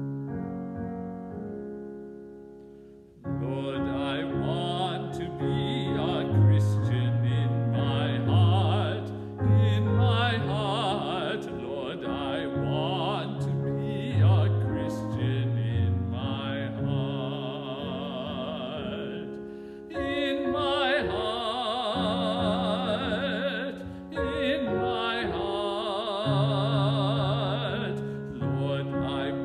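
A man singing a slow sacred song with vibrato, accompanied by piano. The piano plays alone for about the first three seconds before the voice comes in.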